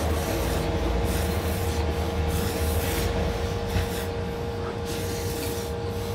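A man eating hot ramen noodles with chopsticks: repeated breathy bursts of slurping and blowing over the noodles. A steady low hum runs underneath.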